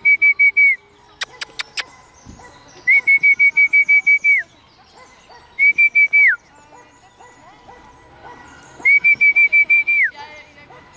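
A whistle blown in short trilling blasts, each warbling on one high pitch and dropping in pitch as it ends. One blast ends just after the start, and three more follow, the last near the end. A few sharp clicks come in quick succession between the first and second blasts.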